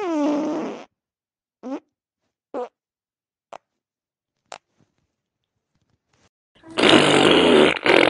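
Fart sound effects: a long fart falling in pitch at the start, then four short toots about a second apart, each briefer than the last. A long, loud, rough blast starts near the end.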